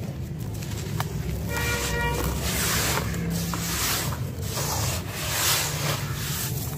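Hands raking and squeezing through wet, gritty sand in a plastic tub: a rough scraping crunch that comes in repeated surges from about two and a half seconds in. A vehicle horn toots briefly about one and a half seconds in, over a steady low rumble.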